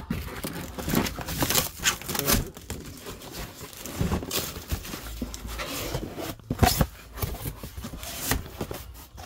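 Cardboard boxes being handled and shifted: irregular scraping, rustling and knocking of cardboard, with the sharpest knock about two-thirds of the way through.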